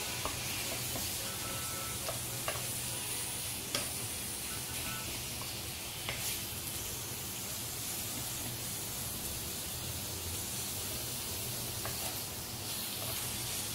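Marinated boneless chicken pieces sizzling in a non-stick wok while a spatula stirs and scrapes them, with a few light knocks of the spatula against the pan. The yogurt marinade's water is still cooking off.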